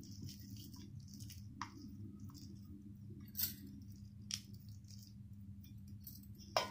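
Faint soft squishes and a few scattered light clicks as fingers crumble boiled shark meat into flakes in a steel plate, over a low steady hum.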